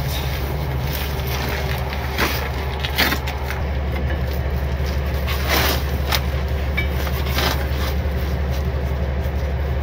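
A truck engine idling with a steady low drone, with a few short metallic clinks and knocks as a bound driveshaft is worked by hand at the rear differential yoke.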